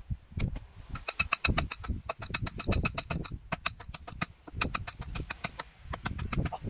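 A hatchet's back pounding the top of a wooden tree stake, a quick run of sharp knocks, several a second, driving the stake into the ground.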